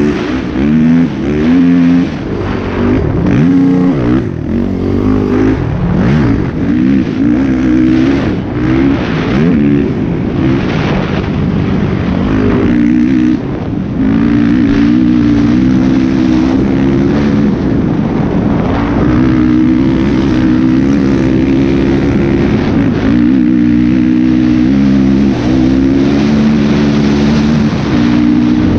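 Honda TRX450R sport quad's single-cylinder four-stroke engine, ridden hard on sand. For the first half it is blipped on and off the throttle with pitch rising and falling, and about halfway through it is held at high revs, climbing and dropping through the gears, with wind rush on the microphone.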